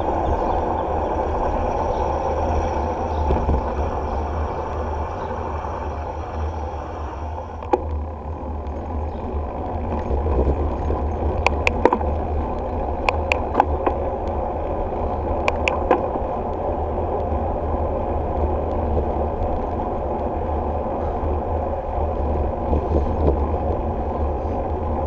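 Steady wind rumble and tyre-on-asphalt noise from a bicycle rolling along a paved road, picked up by a handlebar-mounted action camera. A handful of sharp clicks or rattles come around the middle.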